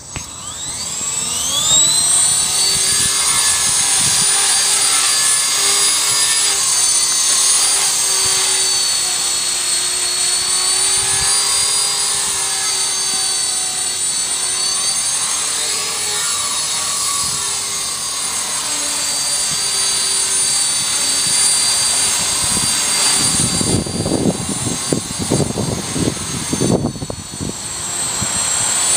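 Walkera 4F180 electric RC helicopter spooling up from the ground to a high whine, then running steadily in flight with its pitch wavering as the throttle changes. Near the end, gusty low rumbling buffets the microphone.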